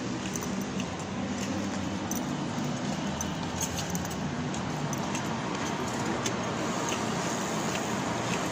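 Steady background hiss with a faint low hum, and scattered light clicks and jingles from walking with the phone.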